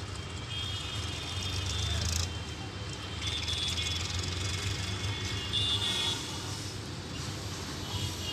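WAP-5 electric locomotive and its train approaching slowly, a steady low rumble, with brief high-pitched tones coming and going.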